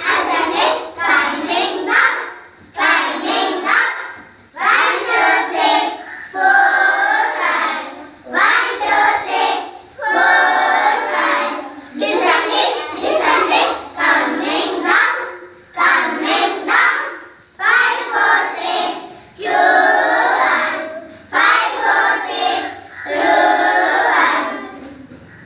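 A group of young children singing an action song together in unison, in short repeated phrases of a second or two with brief breaks between them.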